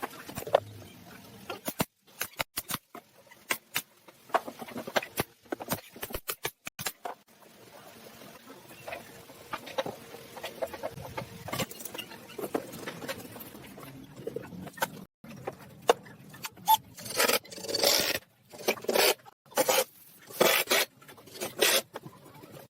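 Irregular clicks, light knocks and scraping, typical of wood pieces and tools being handled, set down and worked by hand. They grow louder and closer together in the last few seconds.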